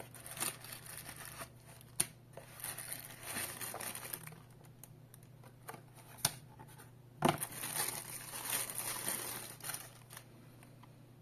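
Packaging being handled: a cardboard box knocked and slid open, and a plastic bag crinkling and tearing as a wireless alarm keypad is unwrapped. The crinkling comes in two spells, the second starting with a sharp knock about seven seconds in.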